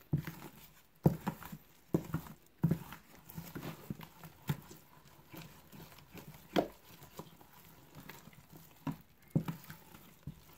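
Wooden spoon stirring flour into a yeast-and-water mix in a plastic bowl, knocking irregularly against the bowl's sides and bottom with dull thuds and scrapes.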